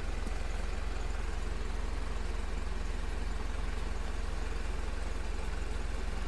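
Mitsubishi Fuso truck's 4M50 four-cylinder turbodiesel idling steadily, a low even engine sound.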